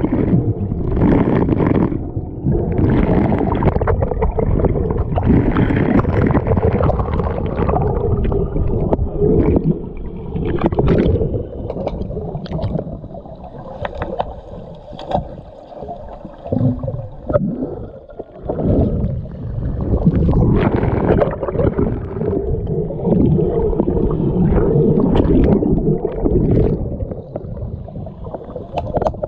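Muffled, churning water sloshing and gurgling from swimmers moving through a pool, with scattered sharp clicks and knocks. It eases off for a few seconds in the middle and then builds again.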